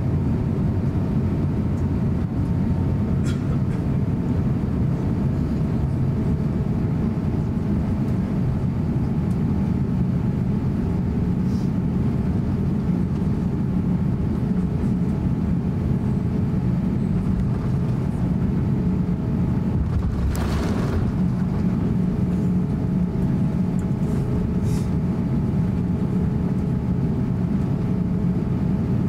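Cabin noise of an Airbus A350-900 taxiing: a steady low rumble from its Rolls-Royce Trent XWB engines at taxi power and the rolling airframe, with a faint steady hum on top. A brief rush of noise comes about twenty seconds in.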